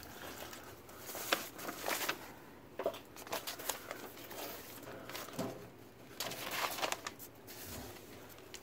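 Cushions and other stored household items being shifted by hand: scattered rustles and light knocks, irregular and fairly quiet.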